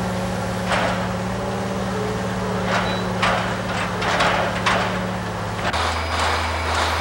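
Chesapeake & Ohio 2716, a 2-8-4 steam locomotive, standing with short hissing puffs at irregular intervals, roughly one every half second to second, over a steady low hum. The hum changes abruptly near the end.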